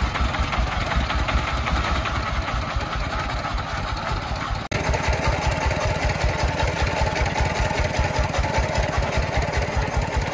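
Single-cylinder diesel engine of a công nông three-wheeled truck idling with a steady, rapid chugging beat. Its sound changes abruptly about halfway through.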